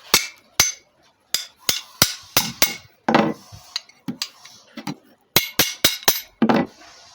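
A hammer striking steel, about fifteen sharp metal-on-metal blows in uneven bursts, some ringing briefly: driving the ground-off pin out of a GM Trans Am door hinge.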